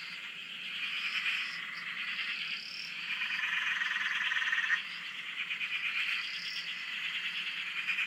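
Chorus of frogs calling: many fast-pulsed, trilling calls overlapping without pause, with one steadier call standing out from about three to five seconds in.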